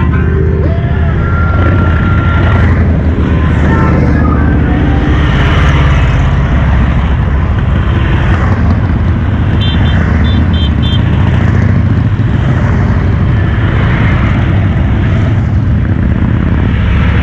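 A procession of large motorcycles riding past one after another, their engines running in a loud, continuous rumble. A few short high-pitched beeps sound about ten seconds in.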